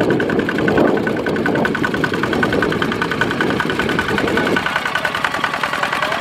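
Kubota ZT155 single-cylinder diesel engine on a walk-behind power tiller, running under load with a rapid, even beat. Under it is a lower rushing noise that stops about four and a half seconds in.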